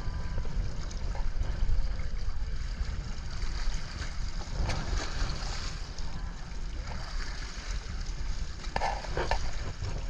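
Wind buffeting the microphone and water slapping against the hull of a small fishing boat, with a steady low rumble.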